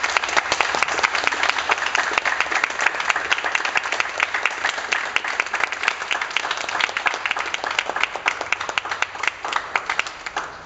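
Small group applauding, with one person clapping close by, the individual claps standing out sharply; the applause dies away near the end.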